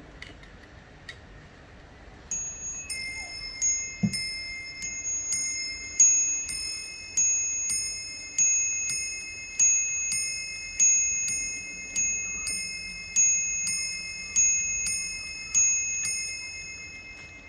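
Striking train of a Warmink 8-day mantel clock sounding the hour on its brass bells: a steady run of about two dozen ringing strikes roughly every 0.6 s, two tones alternating, each note left to ring into the next. A few faint clicks come before the strikes, and a dull knock about four seconds in.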